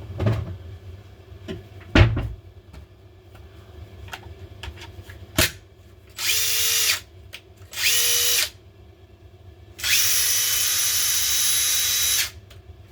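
Makita DTD154 cordless impact driver, with a freshly replaced rotor, test-run unloaded in three trigger pulls: two short runs of under a second, then one of about two and a half seconds, the motor spinning up quickly to a steady whine each time. A few knocks come first, from the tool being handled. The motor runs properly: the repair works.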